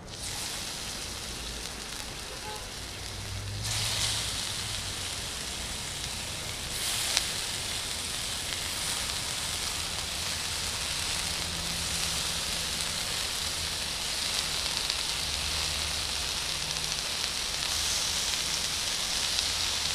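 Chicken pieces sizzling in hot oil on a small barbecue grill. The sizzle starts suddenly as the chicken goes in, then grows louder about four seconds in and again about seven seconds in.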